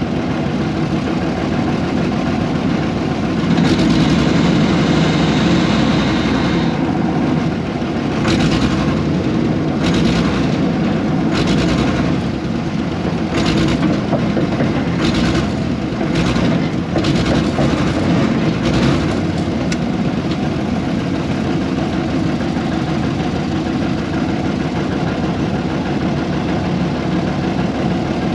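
The 1970s air-cooled Deutz diesel engine of an old excavator running steadily under work, with a series of short noisy bursts through the middle as the machine digs.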